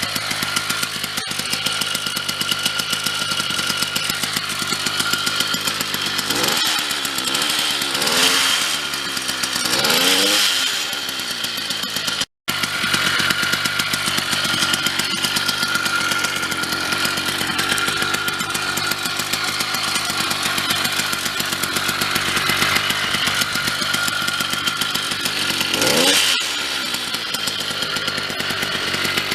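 Motorized bicycle's custom two-stroke engine, with a homemade muffler, running with a steady buzz and revved up and back down several times, in two groups separated by a long stretch of steady running.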